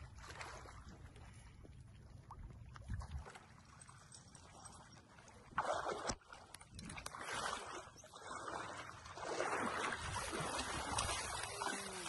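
Splashing through shallow creek water as a person and a dog wade and run through it. The splashing starts faint, then gets louder and busier from about halfway through.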